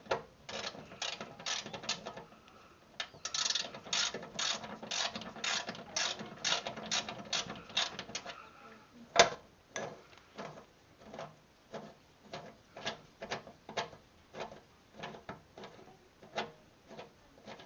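Ratchet wrench clicking in quick, repeated strokes as a bolt is run up into a mower deck spindle housing, with one louder sharp metallic knock about nine seconds in.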